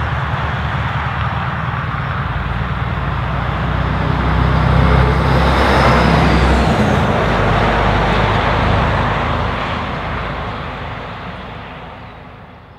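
Scania R620's straight-piped V8 engine running as the truck drives away, growing louder through the middle and then fading out near the end.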